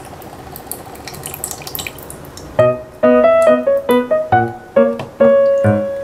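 Water trickling from a toy refrigerator's dispenser into a small plastic cup, with a faint steady hum. About two and a half seconds in, a piano melody starts and becomes the loudest sound.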